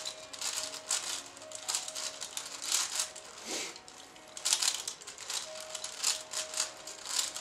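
A 5x5 puzzle cube being turned in quick runs of moves, its plastic layers clicking and scraping, with short pauses between runs. Faint music with a slow melody plays underneath.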